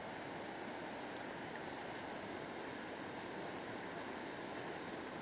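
Steady, even rush of river water flowing.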